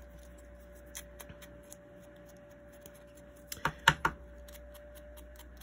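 Light clicks and taps of small paper pieces and a craft tool being handled on a cutting mat, with a quick cluster of sharper clicks about three and a half seconds in, over a faint steady hum.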